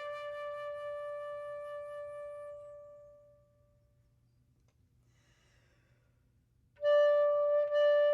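Solo flute holding a long note that fades away over about three seconds into a pause, then coming back in loudly on a new phrase near the end.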